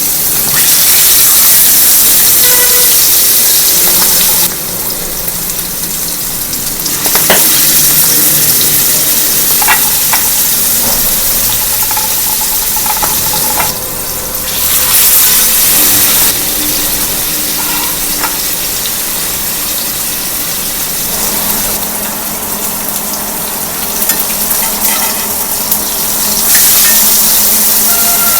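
Marinated fish pieces sizzling as they shallow-fry in a little hot oil in a kadhai. The sizzle swells and eases several times, with a few short clicks.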